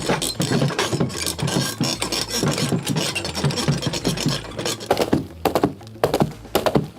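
Foley sound effects being performed: a dense run of rubbing, scraping and rattling, then a few sharp knocks between about five and six and a half seconds in.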